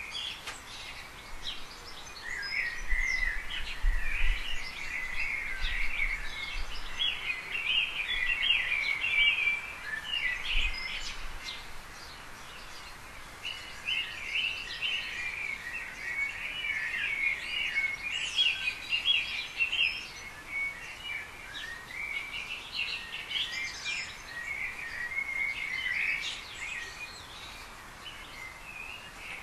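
Garden birds chirping and twittering, many short calls overlapping, with a brief thinner patch about halfway through.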